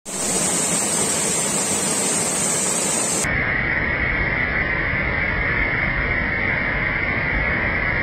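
Waterfall: white water rushing and splashing steadily as it cascades down over rocks. About three seconds in, the rush turns duller and less hissy.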